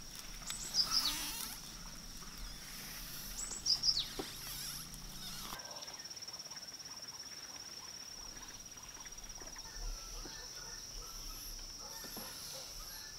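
Countryside ambience: a steady high-pitched insect trill runs throughout and turns into a fast pulsing buzz about halfway through. Short downward-sweeping bird chirps come about half a second in and again around four seconds.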